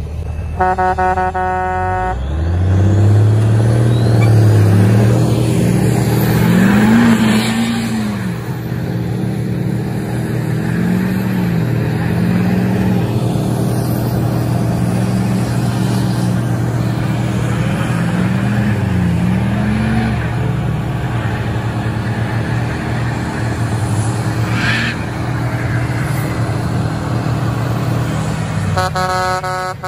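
Diesel engines revving hard under load, the revs rising and falling again and again, as a Cummins-engined cabover semi and Duramax pickups pull against each other with tires spinning on the pavement. A horn sounds briefly at the start and again at the very end.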